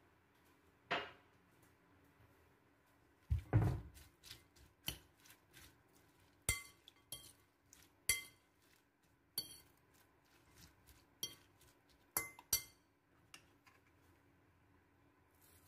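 A metal fork clinking against a porcelain bowl while mixing shredded cabbage with beaten egg: a dozen or so irregular, sharp clinks, each with a short ring. There is a duller, heavier thump about three and a half seconds in.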